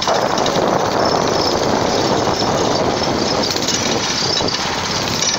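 Homemade scrap go-kart driving along, its small engine running steadily under way with a dense, noisy rattle and no change in pitch.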